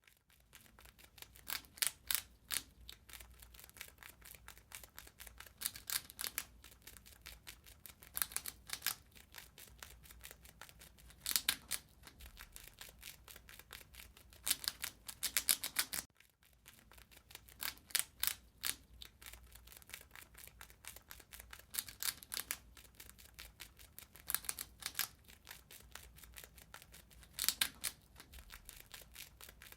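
A rat gnawing and chewing: a fast, continuous run of tiny crunchy clicks, with louder flurries every few seconds. The sequence briefly stops about halfway through and then starts over.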